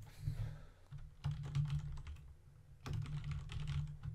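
Typing on a computer keyboard: two runs of keystrokes, each about a second long.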